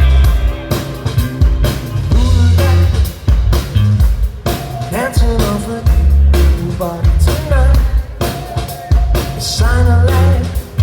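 Indie rock band playing live: drum kit with a heavy kick drum, bass and guitars, with a lead vocal singing over them from about halfway in.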